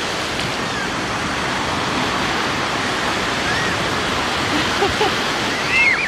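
Heavy sea surf breaking and washing on the shore: a steady, loud rush of waves, rough and strong as the evening sea rises.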